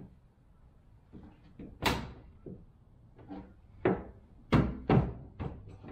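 Plastic tail-light housing of a Ford Maverick being worked loose from the truck body: a series of sharp clunks and knocks, the loudest about two seconds in and several more close together near the end.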